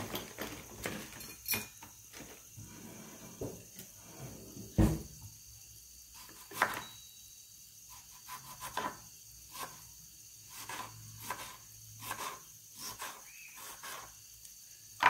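Dried red chillies and whole spices (cumin, fenugreek, peppercorns, mustard seeds) frying in a little oil in an aluminium kadai, crackling with scattered sharp clicks. There are two louder knocks, about five and six and a half seconds in.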